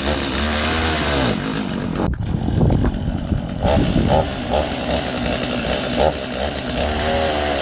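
Stihl two-stroke chainsaw running and being revved up and down several times on a test run after its air filter and cover were refitted, which shows it is working.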